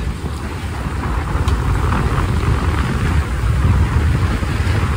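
Strong wind buffeting the microphone in a steady low rumble, over the rushing hiss of water along the hull of a sailing yacht under way.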